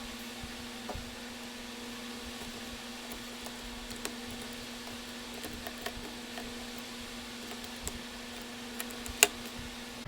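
Scattered faint clicks and taps of small parts being handled over a steady low hum, with one sharper click about nine seconds in.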